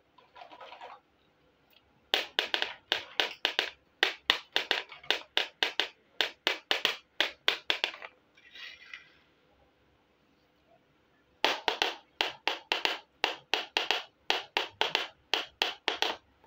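Small plastic toy kitchen pieces clicking as they are handled: two long runs of sharp clicks at about four a second, separated by a pause of a few seconds. Soft scraping comes shortly before each run.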